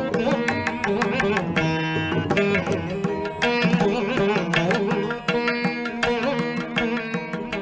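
Indian classical instrumental music in the Carnatic style: a plucked string instrument playing melodic notes over a steady drone, with hand-drum strokes.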